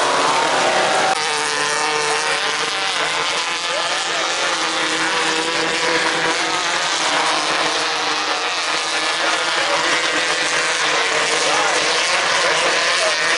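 Engines of several 1600cc off-road race buggies running hard on a dirt track, revving up and down as they pass through the corners.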